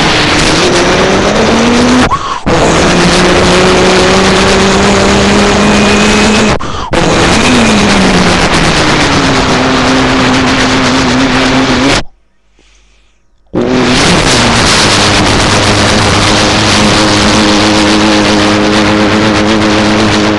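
Rally car engine running loud under load, in several abruptly cut segments: its pitch drops and climbs again in places and holds nearly steady in others. There is a short silent gap about midway.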